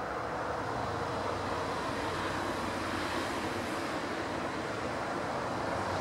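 Steady rumble of distant motor traffic, a dull even noise with no bird calls standing out of it.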